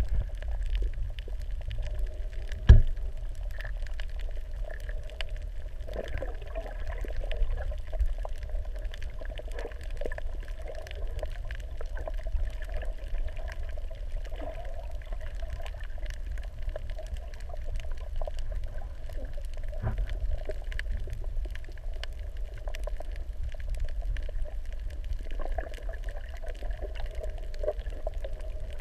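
Muffled underwater sound picked up by a camera held under the sea while snorkeling: a steady low rumble and wavering water noise with many faint scattered clicks. A single loud thump comes about three seconds in.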